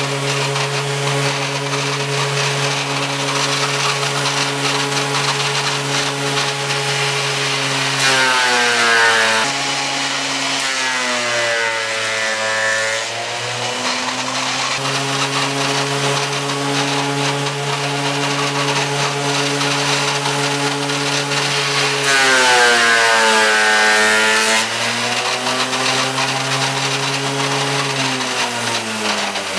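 Tool Shop 13-inch portable thickness planer running with a steady motor whine. Twice a board is fed through, about eight and twenty-two seconds in, and each time the pitch sags and the sound gets louder as the knives cut under load, then comes back up. Near the end the motor winds down.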